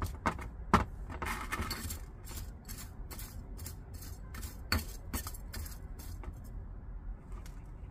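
Long metal tweezers poking and scraping through gritty potting mix in a small ceramic pot: a run of small clicks and scratches, with a louder click under a second in.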